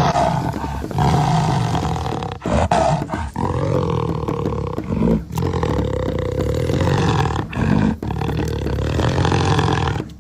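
A series of loud, drawn-out roars, each lasting one to two seconds, with short breaks between them.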